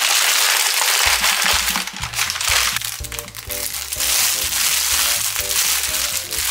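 A brown paper bag being crumpled and folded shut, crinkling loudly for the first couple of seconds, then a thin plastic bag crackling as it is handled, over background music with a steady melody.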